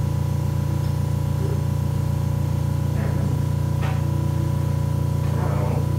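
A steady low hum with fainter steady tones above it, unbroken throughout, with a few soft clicks about three and four seconds in.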